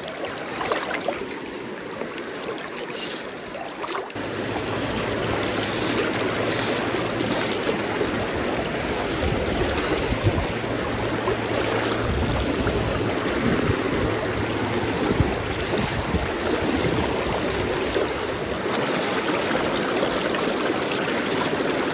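Fast freestone river current rushing over rocks in a steady wash of water noise, growing louder and fuller about four seconds in.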